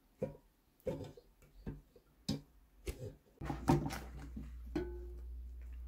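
Light knocks and scrapes of a spatula against the container as thick soap batter is scraped into a slow cooker. About three and a half seconds in a steady low hum begins, and a few louder knocks follow, one with a brief ring, as the slow cooker's glass lid is handled.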